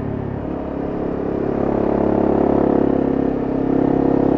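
Honda CRF250M's single-cylinder four-stroke engine running under way. The revs climb through the first half, ease briefly a little after three seconds, then pick up again.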